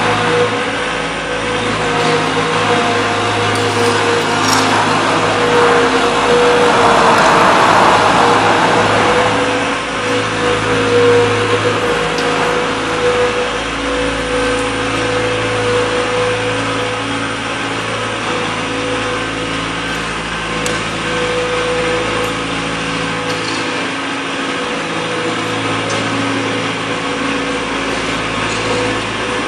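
John Deere skid steer loader's engine running steadily, with a steady whine over the engine hum; it runs louder for a few seconds around seven to nine seconds in.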